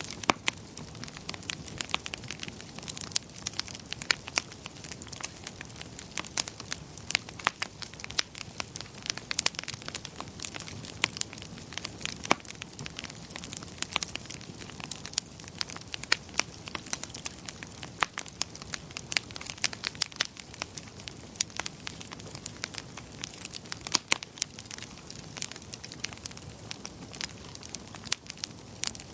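Wood fire crackling in a fireplace: frequent irregular snaps and pops over a soft, steady low hiss.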